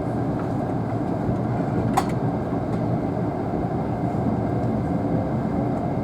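Steady cabin rumble inside a Tobu Spacia X limited express train, with a single sharp click about two seconds in.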